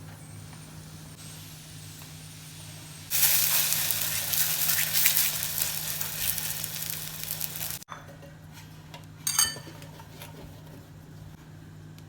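Chicken murtabak, a folded stuffed pastry, sizzling as it fries in a pan. The sizzling starts suddenly about three seconds in, lasts about five seconds and cuts off abruptly; a short clink follows a little later.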